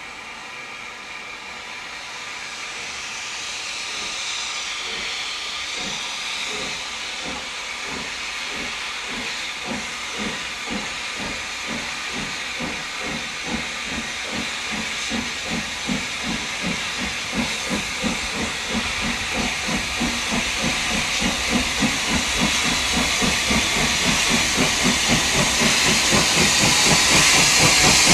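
Steam locomotive starting away with its cylinder drain cocks open, hissing steam. Its exhaust beats begin about four seconds in and come steadily faster and louder as it draws nearer.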